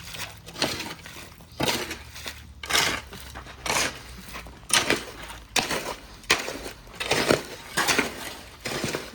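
Rhythmic strokes of hand-tool work on timber, about one a second, each a short rasping burst.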